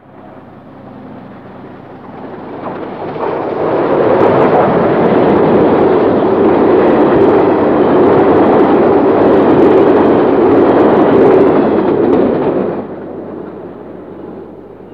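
NSWGR 38 class 4-6-2 steam locomotive and its express carriages passing close at speed: the exhaust and rolling noise swell over a couple of seconds, stay loud and even, then fall away sharply about 13 seconds in as the train runs off.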